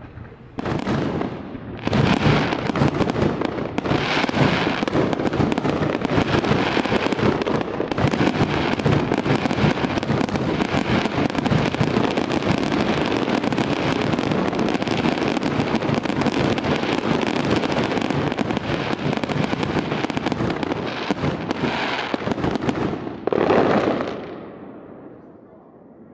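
Aerial fireworks going off in a dense, continuous barrage of bangs and crackling, with a last surge near the end that fades away.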